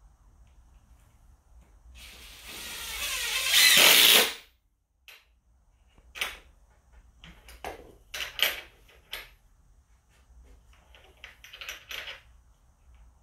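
Cordless drill running for about two seconds, growing louder, then stopping abruptly. It is followed by a series of short clicks and knocks.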